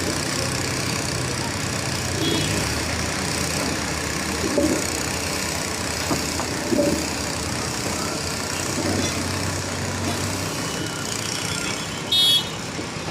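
A JCB backhoe loader's diesel engine running steadily on a construction site, with a short horn toot near the end.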